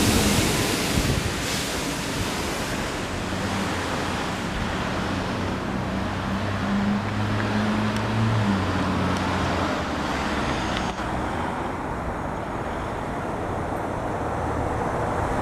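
Wind buffeting the microphone over steady road-traffic noise, with a low engine hum from a passing vehicle from about three to nine seconds in.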